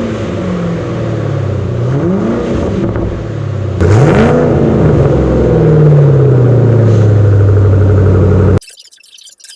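Ford Mustang GT V8 exhaust, revved from idle three times. The last rev drops back slowly to idle, and the sound cuts off suddenly near the end.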